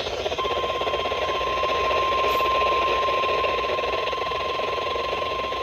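NOAA Weather Radio's 1050 Hz warning alarm: one steady, unbroken beep that starts just under half a second in. It sounds over heavy crackling radio static and hiss and announces a severe thunderstorm warning.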